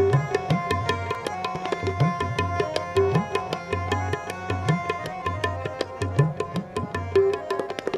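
Instrumental passage of Sikh shabad kirtan: tabla playing a quick, steady rhythm over sustained harmonium notes. The tabla's bass drum bends upward in pitch now and then.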